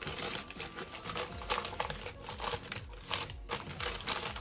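Baking paper crinkling and rustling in quick, irregular crackles as it is handled and peeled back from a rolled sponge cake.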